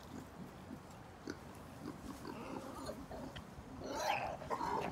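Wild boar making soft sounds in straw, then a louder call about four seconds in.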